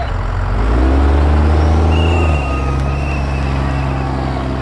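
Off-road wrecker truck's engine revving up hard under load as it pulls on the rope, holding high for a second or so, then easing off about halfway through to a steadier running note.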